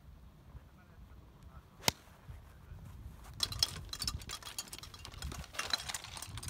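A single sharp crack of a golf iron striking a ball about two seconds in. From about halfway through, golf clubs clatter and rattle in a stand bag as the club is shoved back in and the bag is carried at a run.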